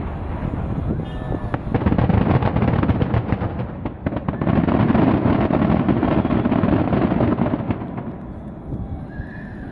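Aerial fireworks shells bursting in quick succession: a dense run of booms and crackling that builds, holds, and dies away near the end.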